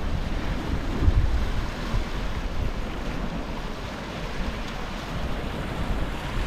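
Gentle ocean waves lapping against the shore, with wind gusting on the microphone in low rumbles, easing off toward the middle.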